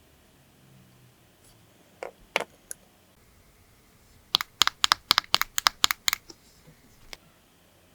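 Small hard objects tapping and clicking: two or three clicks about two seconds in, then a fast run of about a dozen sharp taps lasting about two seconds.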